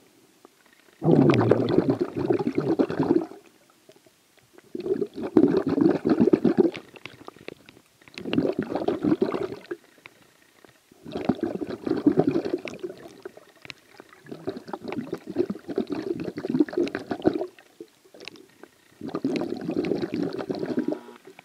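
Underwater breathing of a diver, heard through the water as crackly, bubbling bursts of about two seconds, six in all, repeating every three to four seconds.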